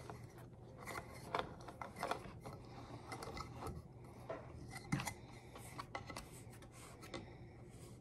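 Plastic bird-feeder mount being screwed by hand onto its base plate: faint, scattered clicks, rubs and scrapes of plastic parts and threads, with a sharper knock about five seconds in.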